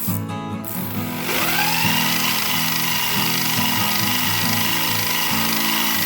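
Small electric motor spinning up with a whine that rises about a second in, then holds steady. Background music plays underneath.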